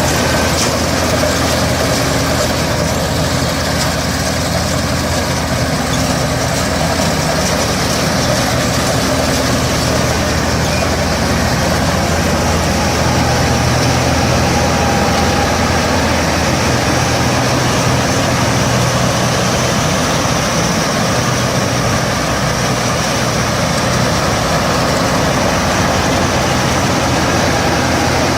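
Combine harvester running steadily, its engine a loud continuous drone with no change in speed.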